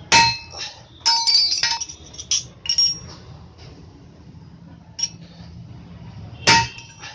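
Hand hammer striking a steel strip on a railway-rail anvil, bending it into a U-shaped clamp. Sharp metallic clinks that ring on: a loud blow at the start, a quick run of blows about a second in, a few single taps, and another loud blow near the end.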